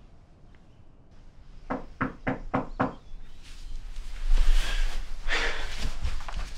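Five quick knocks on a door, followed by a longer stretch of rustling and dull thuds.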